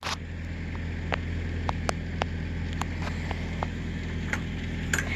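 Vehicle engine running steadily with a low, even hum, with scattered light clicks and ticks over it.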